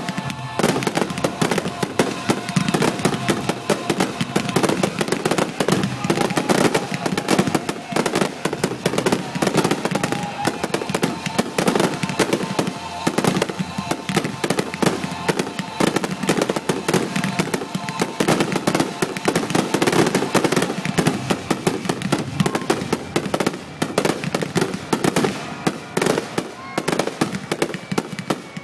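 1.4G consumer fireworks finale: a rapid, continuous string of aerial shell bursts and crackling, with no pause.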